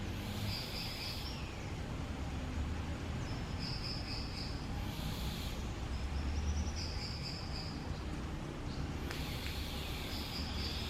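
A bird calling outdoors with a series of high, roughly one-second notes repeated every couple of seconds, over a steady low rumble of wind on the microphone.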